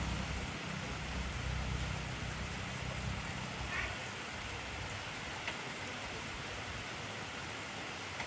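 Intense rainfall, a steady hiss of heavy rain, with a low rumble underneath that dies away about four seconds in.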